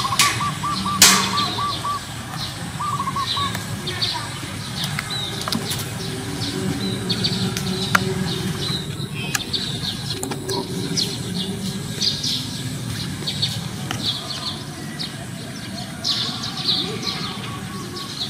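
Small birds chirping outdoors: many short, high calls scattered throughout, over a steady low rumble. A quick run of short repeated notes comes at the very start, and a sharp click about a second in.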